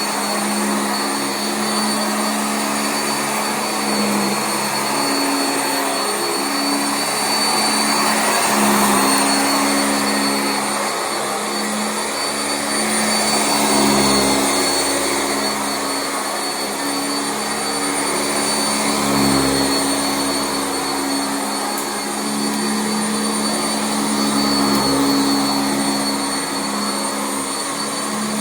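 Sanitaire SC679J commercial upright vacuum running on carpet: a steady motor hum with a thin high whine. It grows louder and softer every five or six seconds.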